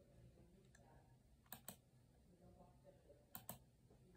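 Faint clicking at a desktop computer over near silence: two pairs of quick clicks, one about a second and a half in and one near the end.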